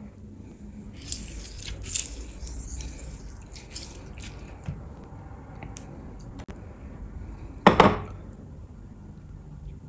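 A lemon half squeezed by hand over a plate of food, its juice squirting and dripping with a wet, crackly squish, about one to two and a half seconds in. Soft handling of dishes follows, with one brief louder clatter about eight seconds in.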